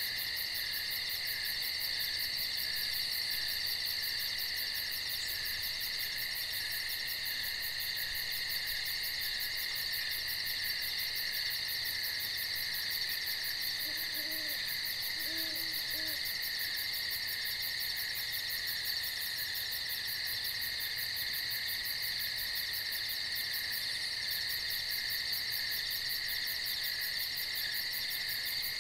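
Nighttime insect chorus, a steady buzzing with a fast pulsing high trill. About halfway through, a few faint, short low calls sound under it.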